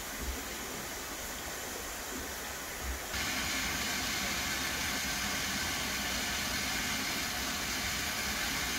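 Steam hissing steadily from LMS 'Black 5' steam locomotive 45212. About three seconds in the hiss turns suddenly louder and brighter, then holds steady.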